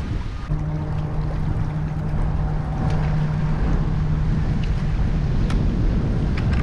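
A motor running with a steady low hum that starts about half a second in, over wind rumbling on the microphone.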